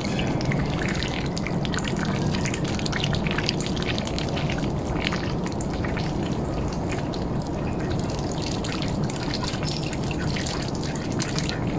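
Quick irregular drips and small splashes of water as ducks and a mute swan dabble and feed with their bills at the pond surface, over a steady low rumble.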